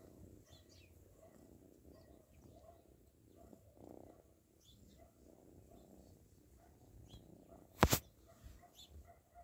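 Faint scattered bird chirps over a quiet low background, then a sudden loud brushing thump about eight seconds in as the phone rubs against the cat's fur.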